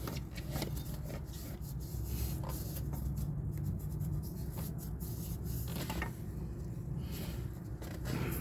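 Irregular rubbing and scuffing by hand in the CV axle bore as it is cleaned out, over a steady low hum.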